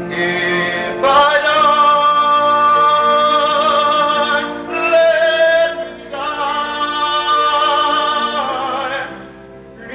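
A teenage boy singing a slow solo in long, high held notes with vibrato over a soft accompaniment, heard through an old VHS tape recording. The voice drops away about nine seconds in.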